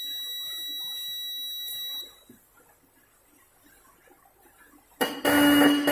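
Electromagnetic disc-type motorcycle horn being test-sounded off a battery while its adjusting bolt is set: a thin, high, steady whine that stops about two seconds in, then, near the end, a loud buzzing honk with a lower note, briefly interrupted. The horn is still out of adjustment and not giving its proper sound, so the bolt is being loosened further.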